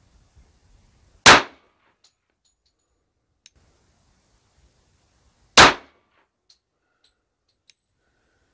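Two .45 ACP pistol shots from a 4-inch-barrel 1911 (Springfield Armory Range Officer Champion) firing 230-grain Speer Gold Dot Short Barrel rounds, about four seconds apart, each a sharp crack with a short ringing tail. A few faint clicks fall between the shots.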